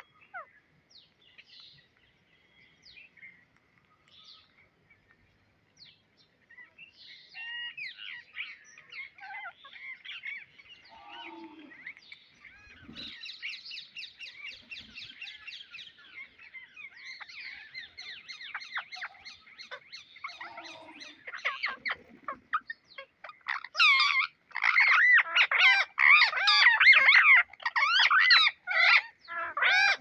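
A flock of rose-ringed parakeets calling: a few scattered calls at first, then a dense chorus of rapid repeated calls from about seven seconds in, loudest in the last six seconds.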